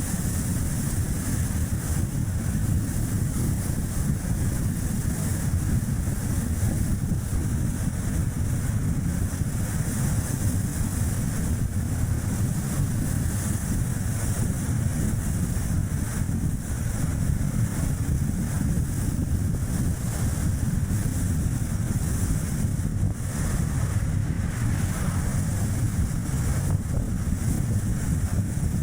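Strong wind rumbling on the microphone together with tyre and road noise from a moving Chevrolet Spark light car: a steady low rumble with a high hiss over it, no break.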